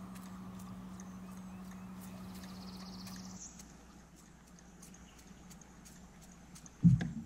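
Light, even clicking, about four ticks a second, as a topwater lure is worked back to the boat on a rod and reel; a low hum under it drops away a few seconds in. Near the end, a sudden loud thump and rumble.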